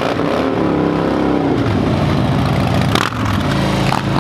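Supercar engine revving as the car pulls away, its pitch rising and falling through the first second and a half. A sharp break comes about three seconds in, after which an engine holds a steadier note.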